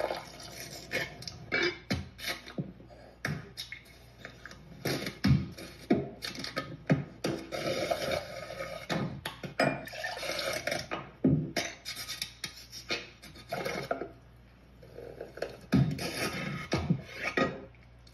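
A rapid, irregular series of sharp percussive knocks and clicks mixed with short noisy bursts, several a second.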